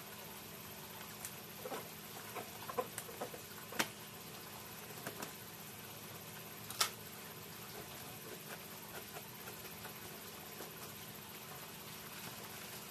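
A plastic fish bag crinkling and rustling in the hands, with a few sharp crackles, the loudest near the middle. Under it, the steady hiss of water pouring from a pipe into a tub and a faint low hum.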